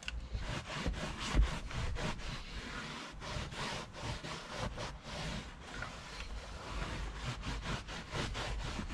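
A cloth rubbed briskly back and forth over a van's carpet, a rapid run of scrubbing strokes wiping in interior cleaner.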